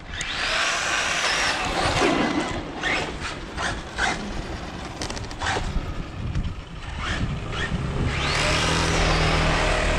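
Maverick Quantum RC truck's electric motor whining as it speeds up and slows down, twice: once right at the start and again near the end. In between come sharp clicks and knocks as the truck runs over the road.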